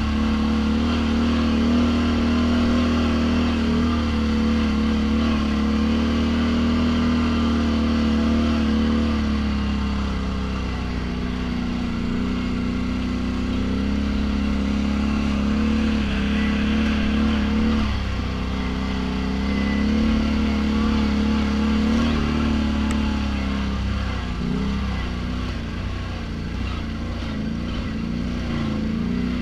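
ATV engine running under way at a fairly steady throttle, its pitch wavering up and down and easing lower about a third of the way in and again near the end.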